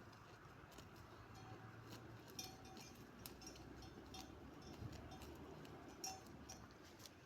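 Faint, scattered clinking of small bells worn by grazing sheep, with a few brief rings and light ticks over a quiet background.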